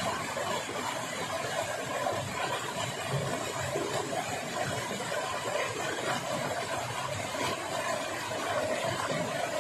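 Stream water rushing steadily, an even noise that doesn't let up.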